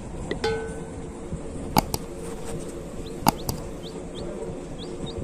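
Baby chick peeping in short, high chirps, several scattered through the second half. Two sharp clicks, about a second and a half apart, are the loudest sounds.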